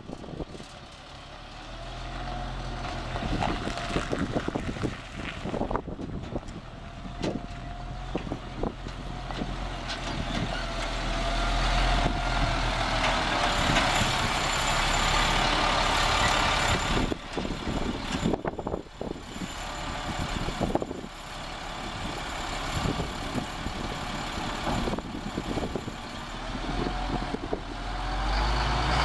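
Caterpillar 3126 turbo diesel in a 1998 GMC C7500 dump truck, running as the truck drives. It grows louder as the truck comes closer, with a wavering whine over the engine hum.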